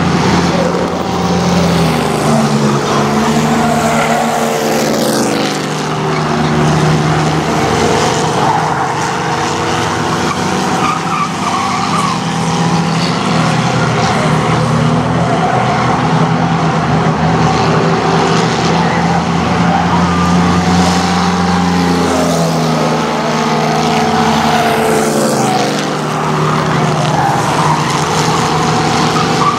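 A pack of chained-together race cars running laps on a short oval, their engines rising and falling in pitch as they accelerate off the turns and pass.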